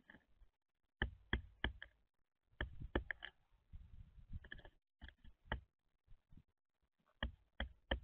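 Black-billed magpie pecking at seed and peanuts in a bird feeder tray: sharp taps in quick clusters of about three, a cluster every second or two.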